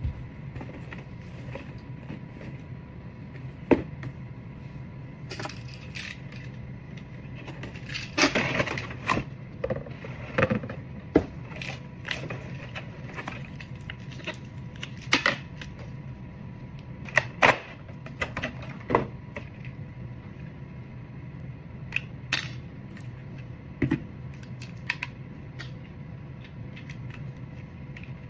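Hands unboxing a plastic toy alarm clock: scattered clicks, taps and knocks of plastic parts and packaging being handled, with a longer rustle about eight seconds in. A low steady hum runs underneath.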